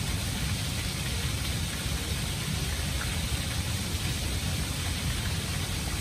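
Water falling down the face of a stacked-stone wall fountain, a steady splashing rush with a deep low rumble underneath.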